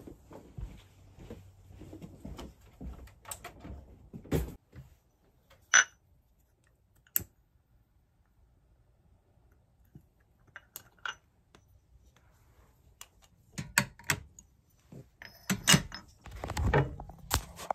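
Scattered clicks, taps and knocks of small objects being handled, with quiet gaps between them, and a denser run of knocks and rustling in the last few seconds.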